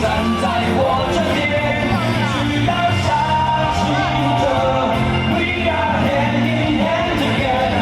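Loud rock-style music with singing, with some yelling over it.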